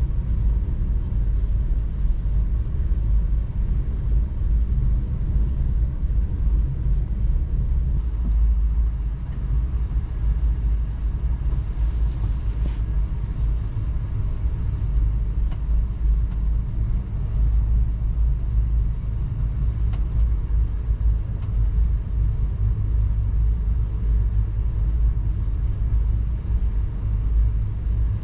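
VIA Rail 'The Canadian' passenger train running along the track, a steady low rumble, with a brief hiss about twelve seconds in.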